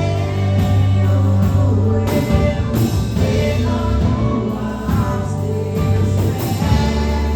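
Worship song being sung over band accompaniment, with a steady bass line underneath.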